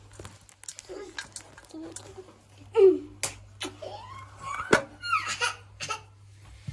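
A young girl laughing and squealing in bursts, with a few sharp clicks among the laughter.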